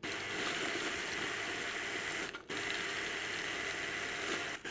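Food processor blitzing broken oat biscuits with melted butter into crumbs, the motor running in pulses of about two seconds with brief stops about halfway and near the end.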